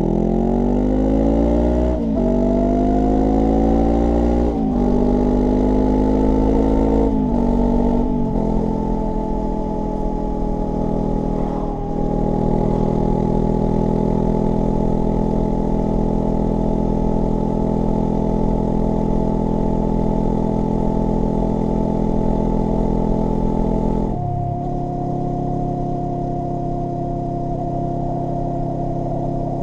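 Honda NX500 parallel-twin engine breathing through a Black Widow BC30T slip-on exhaust, accelerating hard and shifting up through about four gears in the first eight seconds, then cruising at a steady speed. The engine note drops a little about 24 seconds in. The knobby rear tyre adds road noise under the exhaust.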